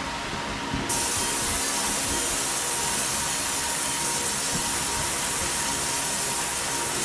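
70 W SPI fiber laser marking machine deep-engraving copper: a steady hiss of the beam ablating the metal, with a faint steady whine underneath. The hiss turns brighter and louder about a second in.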